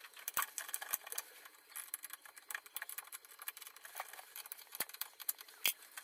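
Scattered small clicks and light metallic rattles of hand tools working on a car battery's terminals and clamp as the battery is disconnected.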